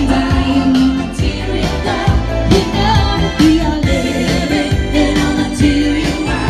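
Live band music: a singer holding long notes over drums and a heavy bass line.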